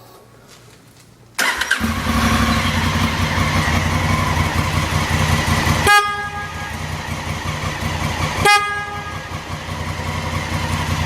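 A Honda Africa Twin's parallel-twin engine starts suddenly about a second and a half in and runs at idle. Over it, the newly fitted FIAMM Freeway Blaster horn gives two short blasts about two and a half seconds apart, a test of the upgraded horn that is way louder than the stock one.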